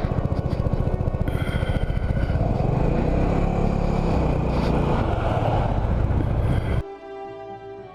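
Small motor scooter's engine running at riding speed with a fast, even pulse and road noise. It cuts off suddenly about seven seconds in, and orchestral music takes over.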